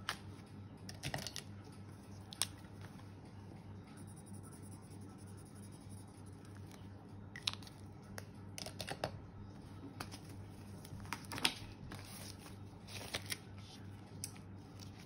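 Plastic binder sleeves and polymer banknotes being handled: scattered soft crinkles and sharp little clicks, over a faint steady low hum.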